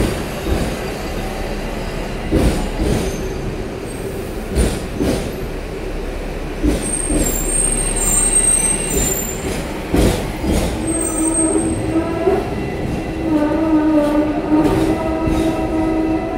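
Hong Kong double-decker electric tram running on street rails, heard from its upper deck: a steady rumble broken by frequent short knocks from the wheels over the track. A pitched, wavering wheel squeal sets in about eleven seconds in and lasts almost to the end.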